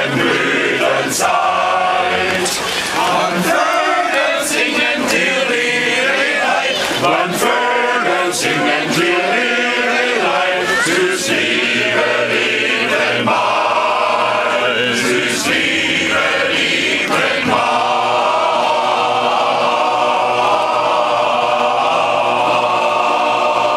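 Men's choir singing a folk song in harmony, holding a long sustained chord near the end.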